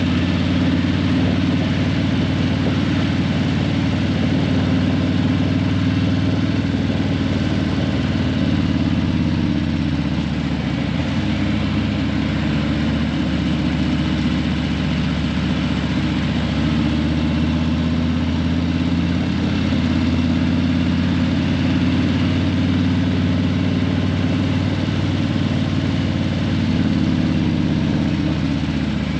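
Harley-Davidson Breakout 117's Milwaukee-Eight 117 V-twin breathing through Vance & Hines Eliminator 300 slip-on mufflers, running steadily at low revs near idle, with only small changes in pitch.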